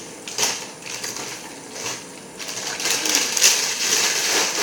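Someone chewing a crunchy snack chip or cracker, with uneven crackly crunches that come thicker and louder in the last second and a half.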